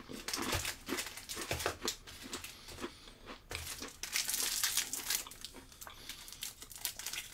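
Clear plastic wrappers of ration biscuits crinkling as the packets are handled, in irregular crackly bursts, the longest from about three and a half to five and a half seconds in.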